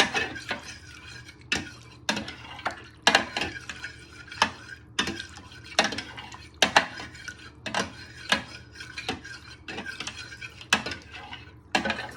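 Spoon stirring in a measuring jug of hot water to dissolve a chicken stock cube, clinking against the sides again and again at an uneven pace, with quieter scraping between the clinks.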